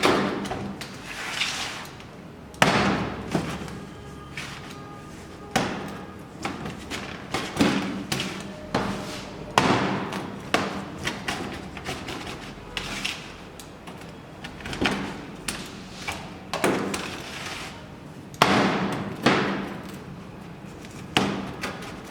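A pizza being cut into slices: the cutter comes down on the surface beneath it in sharp, irregular knocks every second or two, some with a glassy ring. A steady low hum runs underneath.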